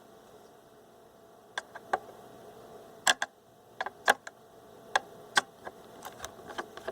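Irregular sharp clicks and taps of a screwdriver working small screws out of a portable radio's plastic case and circuit board, a few single clicks at first, then a denser run after about three seconds.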